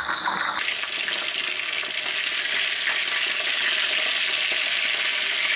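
Hot oil sizzling steadily around a whole milkfish deep-frying in a wok, turning to a brighter, hissier fry about half a second in.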